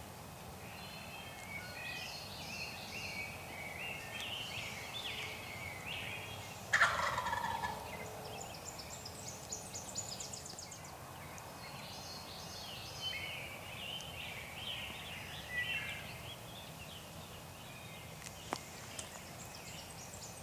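A wild turkey gobbler gobbles once, loud and close, about seven seconds in: a rapid rattling call that falls in pitch. Quieter high bird calls chirp on and off through the rest.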